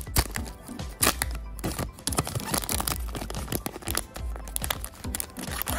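A foil trading-card booster pack crinkling and tearing as it is opened by hand, in quick irregular crackles. Background music plays underneath.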